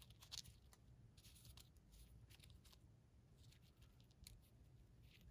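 Near silence with faint, scattered soft rustles and light taps of small paper ephemera pieces being handled.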